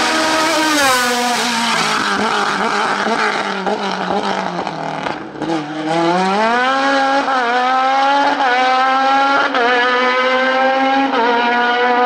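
Open-wheel single-seater race car's engine. Its revs fall steadily as it slows for a tyre chicane, bottoming out about five seconds in. It then climbs hard as the car accelerates away, with four quick upshifts about a second apart, each a brief drop in pitch.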